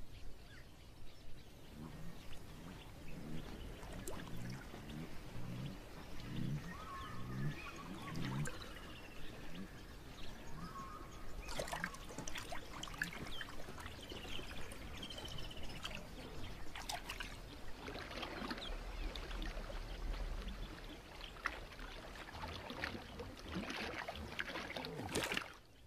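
Natural wildlife soundscape of water trickling and splashing, with short bird calls around the middle. A run of low, rhythmic pulses comes in the first several seconds.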